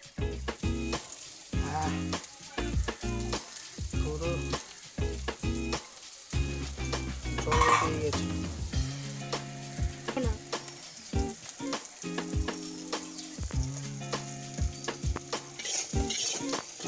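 Parshe fish paturi sizzling in oil in an aluminium kadai lined with banana leaf, with quick crackles throughout as it cooks covered on low heat.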